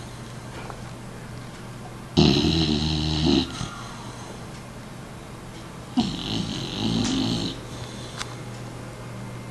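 American Staffordshire terrier snoring in its sleep: two loud snores, each a little over a second long and about four seconds apart.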